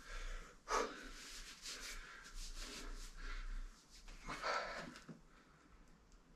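A man's heavy, forceful breathing as he braces over a concrete atlas stone for a lift, loudest in two big breaths, about a second in and again after about four and a half seconds.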